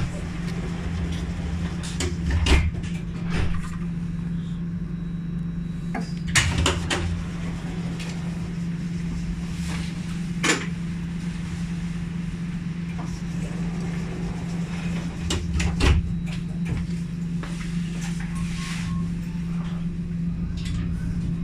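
Alstom Citadis 402 tram standing still with a steady low hum from its onboard equipment. Several short knocks and clunks are heard, the loudest about two and a half, six and a half and sixteen seconds in.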